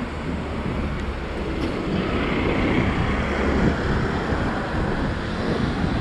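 City road traffic, a steady rumble of passing vehicles that swells for a couple of seconds in the middle as one goes by.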